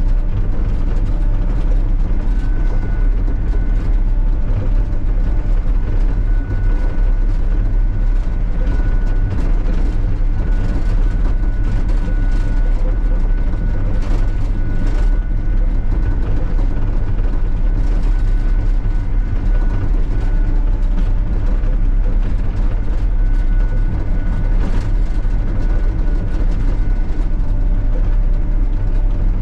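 Sany SY35U mini excavator's diesel engine running steadily as the machine works, with a thin high whine that comes and goes.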